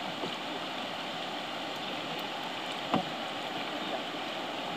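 Steady rushing of a shallow, rocky river flowing past, with a single sharp knock about three seconds in.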